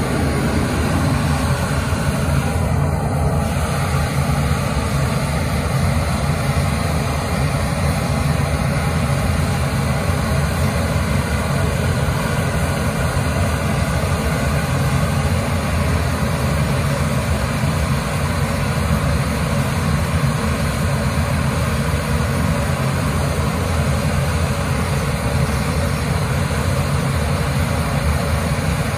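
Steady, loud jet-engine rumble that does not let up.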